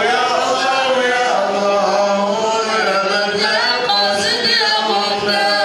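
Men's voices chanting together, several voices overlapping, their pitches sliding up and down, over a steady low hum.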